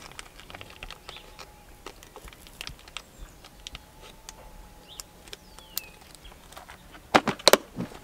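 Hands handling a small plastic packet of nail weights over a tackle tray: soft crinkling and light clicks, then a few louder sharp knocks and rattles near the end.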